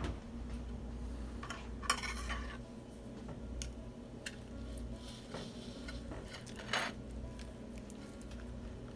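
Metal knife clinking and scraping against a ceramic plate while cutting into a cooked steak: scattered sharp clicks and a couple of short scrapes, the loudest about two seconds in and near seven seconds. A steady low hum runs underneath.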